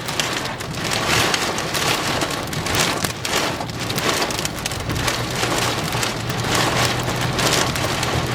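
Heavy rain pelting the roof and windshield of a moving vehicle, a dense patter of drops over road noise, with a low steady hum coming up about five seconds in.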